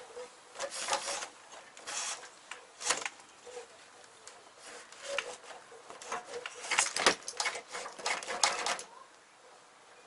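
VW Corrado wiring harness being worked out of the engine bay by hand: wires rustling and plastic connectors clicking and knocking against the body in irregular bursts, busiest in the second half.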